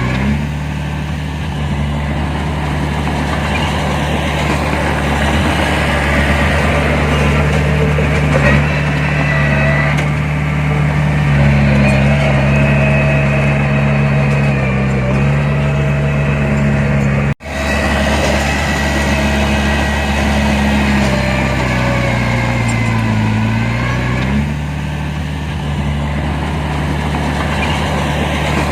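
Heavy diesel earthmoving machinery running, its engine note shifting up and down several times as the load changes. The sound drops out for an instant about two-thirds of the way through.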